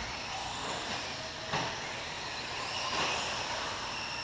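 Electric radio-controlled cars running on a clay track, their motors giving a high whine that shifts in pitch as they speed up and slow down. A single thump comes about one and a half seconds in.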